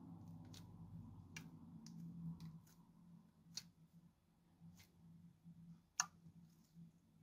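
Faint, scattered clicks and pops of dish-soap slime being pressed and patted flat by hands, the sharpest pop about six seconds in, over a faint low hum.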